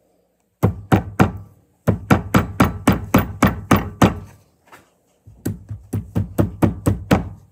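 Hammer striking metal, tapping down the metal band clamp on a CV axle boot, each strike leaving a short ring. Three blows come first, then a quick run of about five taps a second, a brief pause, and a second run.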